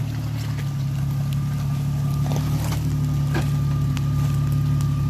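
Lifted Jeep Cherokee XJ's engine running steadily at low revs as it crawls down a rocky slope, with a faint steady high whine over it. A few sharp knocks come in the middle.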